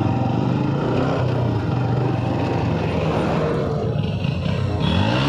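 Motorcycle engine running steadily at cruising speed, with wind rushing past. Just before the end the engine note rises as it revs up.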